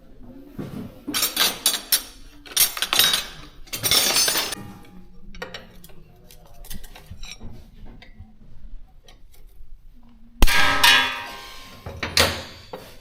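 Metal hand tools and bike parts clinking and clattering in clusters during a motorcycle service. Near the end there is one loud, sharp metallic hit that rings briefly.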